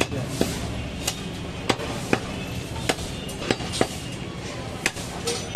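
Butcher's cleaver chopping goat meat on a round wooden log block: about ten sharp chops at an uneven pace, roughly one or two a second.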